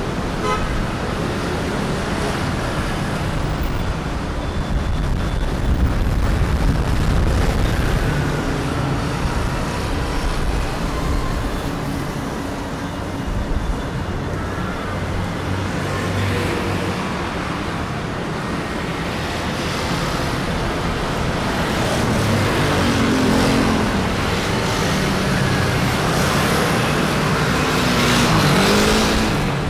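Street traffic: cars and other motor vehicles running past. It grows louder near the end as an engine passes close, its pitch bending as it goes by.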